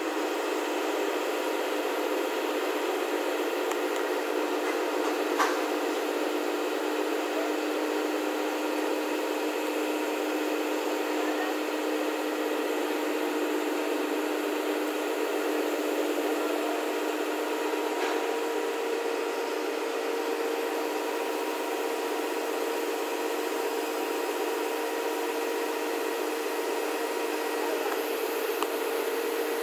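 Steady machinery drone: a constant hum of several held tones over a hiss, with a faint click about five seconds in.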